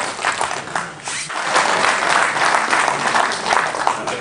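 Audience applauding: many hands clapping together, thinning briefly about a second in and then picking up again.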